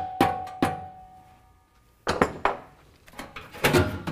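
Rubber mallet striking the F-150's steel factory exhaust pipe twice in the first second, each blow leaving the pipe ringing. After a short pause come more knocks and clunks as the muffler pipe is worked loose from the header pipe.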